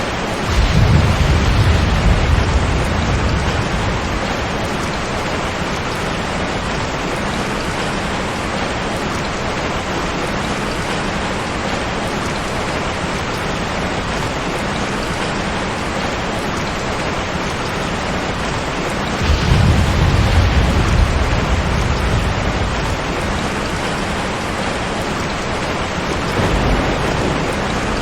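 Steady heavy rain, with rolls of thunder rumbling low three times: near the start, about two-thirds of the way in, and more weakly near the end.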